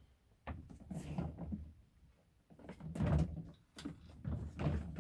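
Hard plastic parts of a Henry XL vacuum cleaner being handled and fitted together during assembly: irregular clunks and knocks in two bouts, the second the louder.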